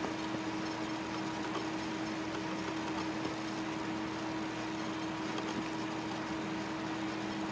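Steady mechanical hum with one constant low tone over a soft hiss, like a fan or motor running.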